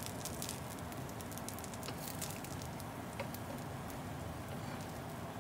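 Rice-flour and oatmeal pancake batter sizzling and crackling steadily in a hot nonstick frying pan, with a light click of a wooden spatula against the pan about three seconds in.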